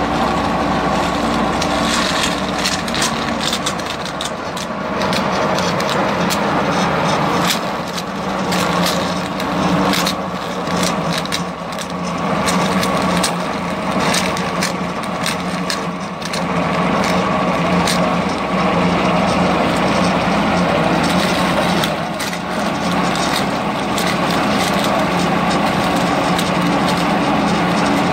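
Fish-feed extruder driven by a Toyota 7K 1800cc four-cylinder engine running on LPG, the engine and belt-driven extruder running steadily under load, with many sharp irregular clicks and crackles over the steady hum.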